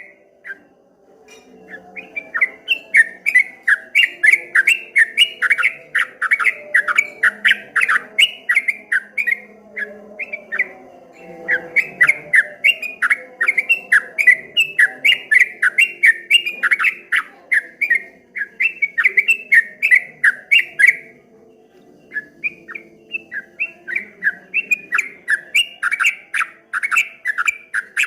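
Yellow-vented bulbul (trucukan kebo) singing a fast rolling 'ropel' song: long runs of quick chirping notes, about four to five a second, rising and falling in waves. Short breaks come about a second in, about a third of the way through and about two-thirds through.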